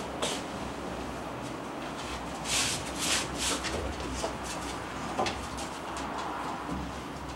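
Scuffling as two Akita dogs jump up and paw at a man's cotton judo gi on a wooden deck: several short rustling bursts of fabric and fur about two and a half to three and a half seconds in, with a few clicks.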